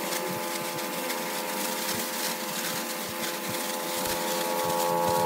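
Pneumatic conveyor running, blowing rice husk through its pipe: a steady whine of several unchanging tones over a rush of air, growing a little louder near the end.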